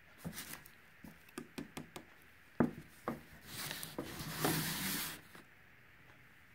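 Scattered light taps and clicks of handling, then about two seconds of scraping as the ceramic tile is slid and shifted across the paper-covered work surface.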